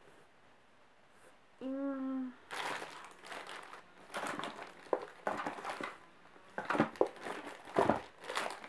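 Plastic and foil packaging crinkling and rustling in irregular bursts as cosmetics are handled and searched through, after a short hummed "hmm" about two seconds in.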